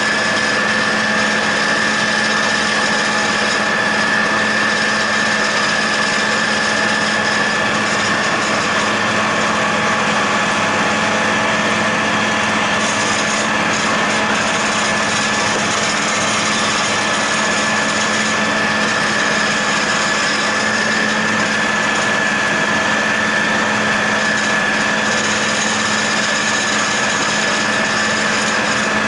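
John Deere 8100 tractor pulling a John Deere 946 MoCo discbine that is cutting hay. The six-cylinder diesel and the spinning mower run steadily under load, with a constant high whine over the drone.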